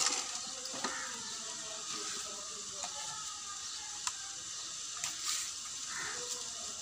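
Water splashing and sloshing as a motorcycle is washed by hand with a wet cloth and a bucket dipped into a basin, with a few small knocks.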